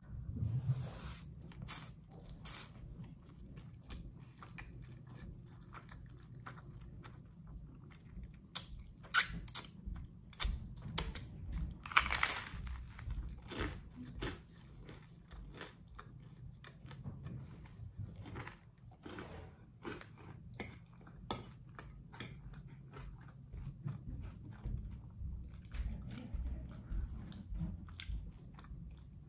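A person eating spaghetti and garlic bread, with a slurp of spaghetti at the start, then steady chewing broken by crunchy bites and many short wet mouth clicks. The longest, loudest crunch comes about twelve seconds in.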